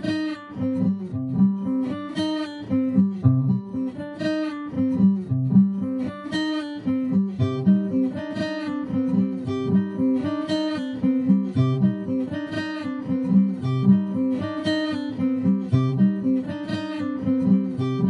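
Background music: acoustic guitar picking notes, with a strong strum about every two seconds.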